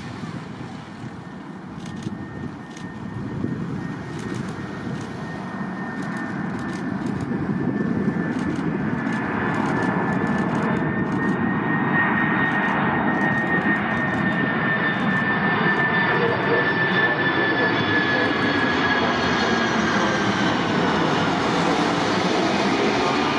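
Boeing 747-400 freighter's four jet engines approaching and passing, the rush swelling over the first several seconds and then holding loud. A high engine whine runs through it and bends downward in pitch in the second half as the aircraft goes by.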